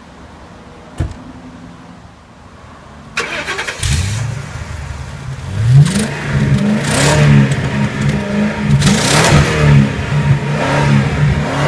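Ford Crown Victoria Police Interceptor's 4.6-litre V8 exhaust, idling low after a single thump about a second in, then revved hard again and again from about three seconds in, each rev rising and falling. The party noise makers stuffed into the tailpipes are blown out without adding any sound of their own.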